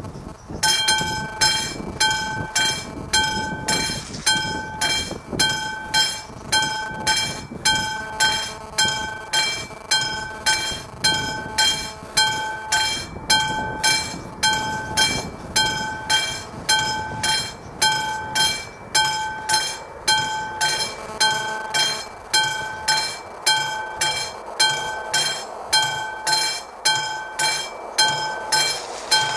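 Classic electric warning bell of an AŽD 71 level-crossing signal, ringing in a steady rhythm of about three strikes every two seconds. It starts about half a second in, signalling a train approaching the crossing.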